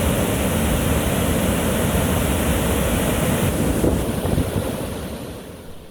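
Waterfall rushing, a loud steady wash of falling water that fades down over the last couple of seconds.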